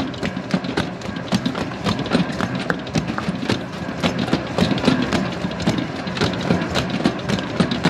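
Large stand mixer kneading bread dough in a stainless steel bowl. The motor runs steadily while the dough slaps and knocks against the bowl and hook in a quick, irregular clatter.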